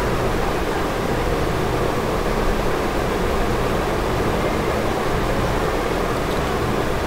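Steady background room noise on the microphone: an even rushing hiss with a low hum beneath it, unchanging throughout.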